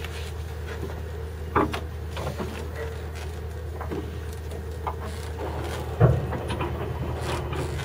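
Deck-work sounds of hoisting sail on a schooner: scattered knocks and creaks of lines and rigging, with a sharp knock about a second and a half in and a louder, deeper thump about six seconds in, over a steady low hum.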